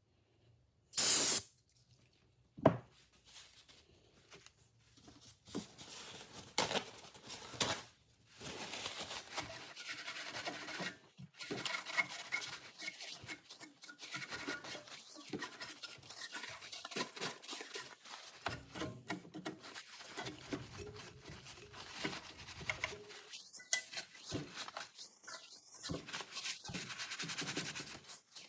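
A short spray hiss about a second in, then a long stretch of uneven rubbing and scraping from small parts being handled.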